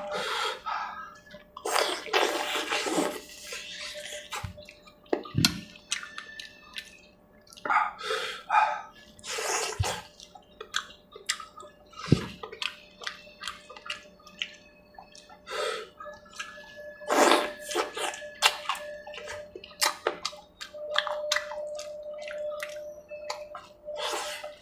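Close-up wet eating sounds: a hand squishing through curry gravy and chicken on a steel plate, with slurping, lip-smacking and chewing in irregular bursts.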